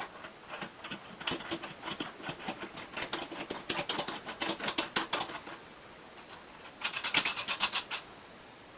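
Irregular small mechanical clicks and rattles, then after a short pause a fast run of about ten sharp ratchet-like clicks near the end.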